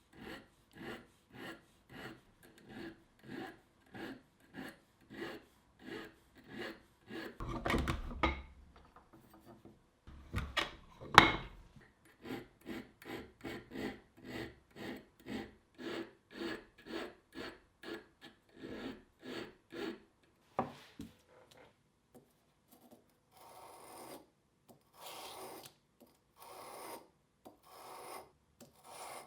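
Hand file cutting steel in steady back-and-forth strokes, about two a second, with a sharp knock about eleven seconds in. Near the end the strokes become slower and longer.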